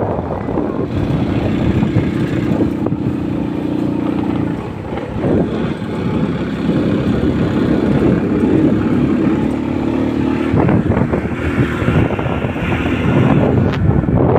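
Motor scooter running at road speed, with wind buffeting the microphone. A steady engine hum comes through in two stretches, from about a second in and again from about six seconds in.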